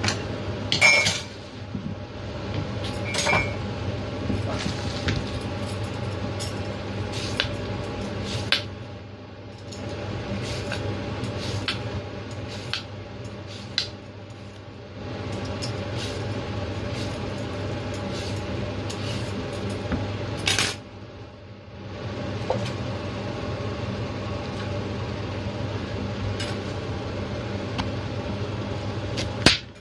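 A carrot being peeled into strips and cut on a plastic cutting board: a run of short scraping strokes and light taps over a steady low background hum, with two small ringing clinks near the start.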